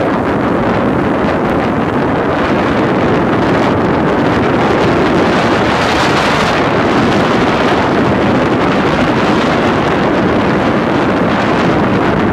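Steady wind noise buffeting the microphone on an inflatable boat under way, with the boat's motor and the rush of water beneath it.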